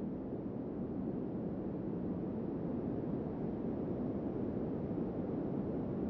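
Wind blowing steadily: an even, low rushing noise with no gusts or breaks.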